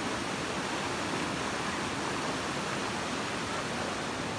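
Shallow rocky river running fast over stones and small rapids: a steady rush of flowing water.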